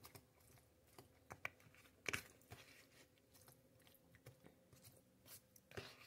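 Fork stirring soft mashed potatoes in a plastic microwave container: faint, scattered clicks and scrapes of the utensil against the container, the loudest about two seconds in.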